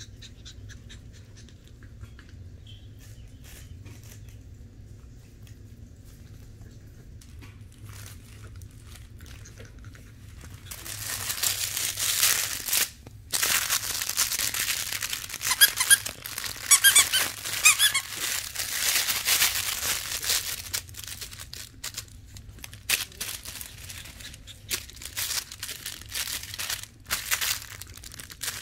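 Fabric puppy toy crinkling and squeaking as it is shaken by hand and chewed by a Shih Tzu puppy, starting about ten seconds in after only faint ticks; a quick run of squeaks comes a few seconds later.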